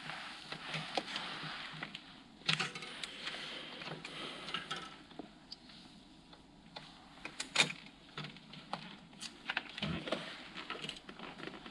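Faint metallic clicks and rattles of a bicycle chain and drivetrain being handled and turned by hand, as the chain is searched for a quick link before breaking it; the sharpest click comes about two-thirds of the way through.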